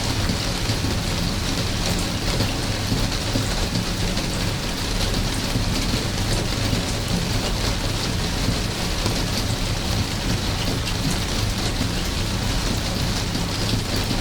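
Steady rain: an even hiss with many small drops ticking through it over a low, steady rumble.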